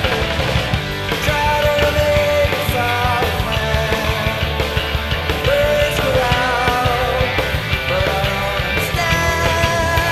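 Studio recording of a rock band playing, with electric guitars, bass and drums.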